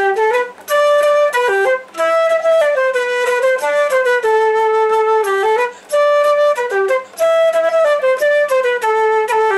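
Concert flute playing a traditional-style folk melody, a single line of notes in phrases, with two short breaths about two and six seconds in.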